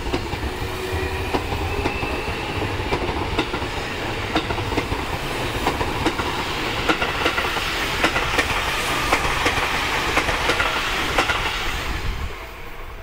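Seibu 40000-series electric commuter train accelerating away from a station close by. Its wheels click steadily over the rail joints, and a rising motor whine is heard in the first few seconds. The sound drops off sharply about twelve seconds in as the last car passes.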